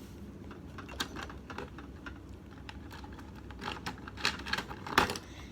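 Irregular light taps and clicks of small items being handled on a desk, busier in the second half, with one sharper knock near the end.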